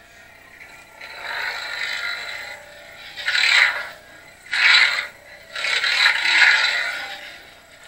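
Hasbro Force FX Black Series Kylo Ren lightsaber's speaker playing its swing sound effects as the saber is waved: four noisy swooshes over the blade's running hum, the last one longest.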